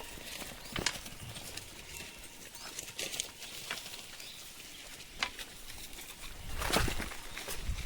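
Footsteps of goats and a person walking over a dry forest floor: scattered snaps and crackles of leaves and twigs, with a louder rustle near the end.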